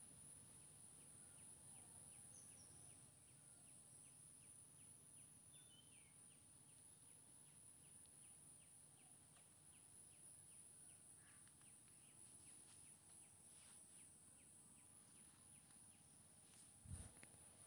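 Near silence: faint background room tone with a steady high hiss, a faint run of regular ticks at about three or four a second for several seconds, and one soft thump near the end.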